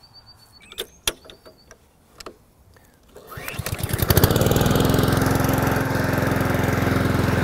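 Honda Izy HRG466 lawn mower with a GCV160 four-stroke OHC engine, pull-started cold after winter storage. After a couple of sharp clicks, the recoil pull comes about three seconds in. The engine catches on that first pull and settles into a steady run.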